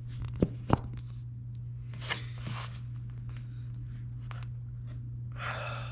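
A hand-held action camera being handled and set in place: two sharp clicks in the first second, then soft rustles of movement, over a steady low hum.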